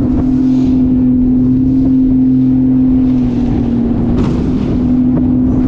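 Outboard motor of a small aluminum boat running steadily under way, its pitch sagging slightly a little past three seconds in and picking back up about a second later. Wind rushes over the microphone.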